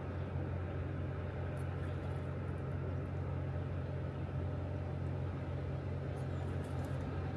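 Steady low rumble of river water pouring out below a dam, even in level throughout.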